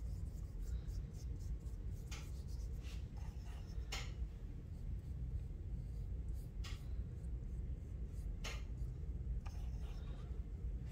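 Paintbrush strokes on paper: a handful of short, soft scratchy brushings a second or two apart, over a low steady hum. Near the end the brush is swirled on a tempera paint cake.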